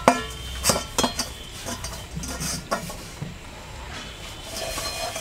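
A metal spatula scraping and clinking against a metal cooking pot as cooked peas pulao is turned over and fluffed. A sharp clink with a brief ring at the start, a few more knocks over the next three seconds, then softer scraping.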